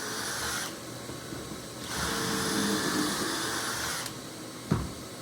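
Drill boring pocket holes into 2x4 stretchers: a short run at the start, then a longer run of about two seconds with a steady high whine. A brief knock follows near the end.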